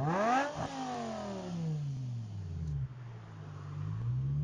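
BMW E60 M5's V10 engine through a custom exhaust, revved sharply once at a standstill: the revs shoot up, then fall back to idle over about two and a half seconds, and start climbing again near the end.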